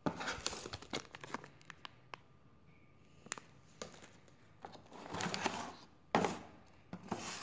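Rustling and crinkling of packaging being handled: paper, cardboard box and moulded plastic tray, with scattered sharp clicks and taps. A longer rustle comes about five seconds in, and the loudest crackle just after six seconds, as the microphone is lifted out of its plastic tray.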